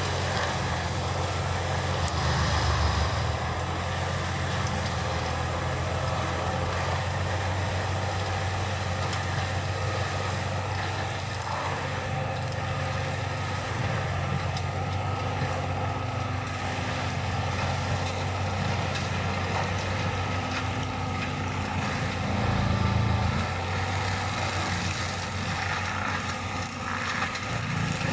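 John Deere 6190R tractor's six-cylinder diesel running under load, driving an FAE hammer forestry mulcher that shreds woody debris. A steady engine hum under the mulcher's continuous grinding noise, swelling briefly a couple of seconds in and again later on.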